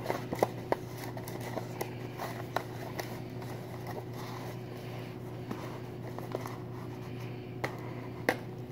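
Disposable aluminium foil loaf pan crinkling and clicking irregularly as bread slices are pressed down into it by hand, over a steady low hum.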